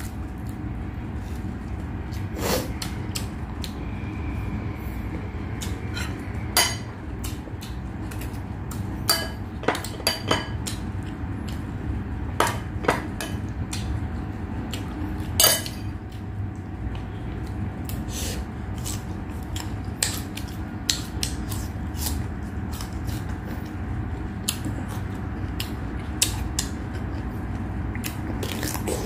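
Close-miked eating: chewing and mouth smacks, with short, sharp clicks and clinks of food and fingers against a plate scattered irregularly, over a steady low background hum.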